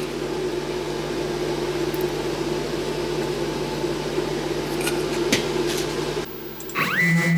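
Steady machine hum with a few light clicks; near the end, after a brief drop, a motor winds up in a quick rising whine and settles to a steady pitch: the milling machine's spindle starting up to drill.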